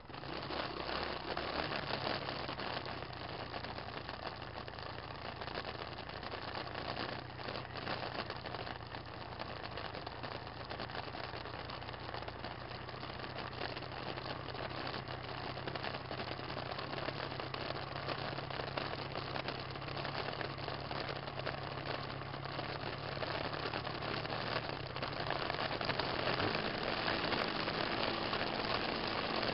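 Small engine of an off-road vehicle running steadily under way, with a dense wash of wind and ride noise; the engine note changes pitch about 26 seconds in.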